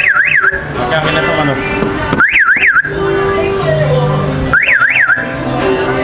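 A loud siren-like warble in short bursts: each burst rises and falls twice quickly, and the bursts repeat about every two and a half seconds. Music-like notes play between the bursts.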